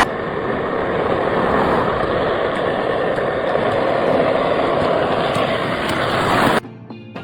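Steady machinery noise, even and unbroken, that cuts off suddenly near the end and gives way to quiet music.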